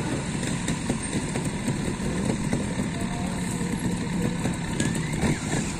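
A trials motorcycle's engine running at low revs, its pitch wavering slightly with the throttle.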